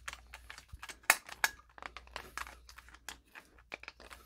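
Screwdriver tightening a ground screw into a steel octagon electrical box: a run of small irregular metallic clicks and scrapes, with the wires rustling against the box, the two sharpest clicks about a second in.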